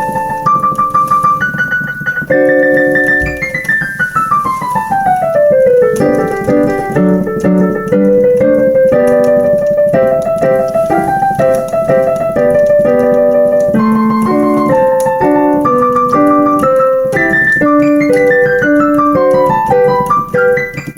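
Digital piano playing a melody over chords. A fast descending run of notes comes a few seconds in, and another comes near the end.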